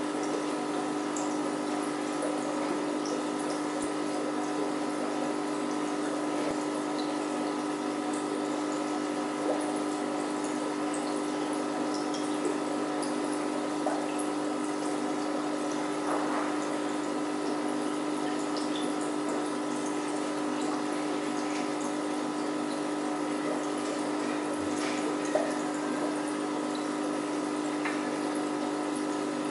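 Aquarium filter and pump running steadily: a constant hum with an even trickle of water and bubbles, and a few small clicks.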